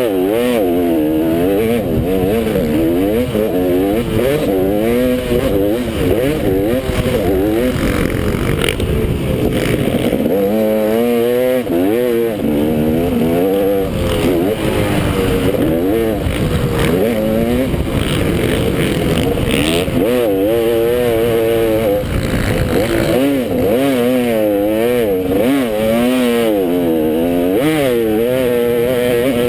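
Motocross bike's engine under race riding, its pitch rising and falling over and over as the throttle is opened and shut and the gears change, over a constant rush of noise.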